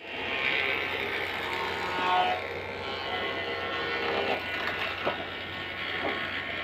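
Workshop background noise with a faint steady hum, and a few light knocks of thin wooden strips being sorted by hand in the second half.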